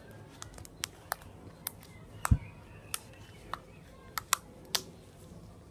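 Purple slime being kneaded and poked by hand, giving about a dozen irregular sharp clicks and pops, the loudest with a low thud about two and a half seconds in.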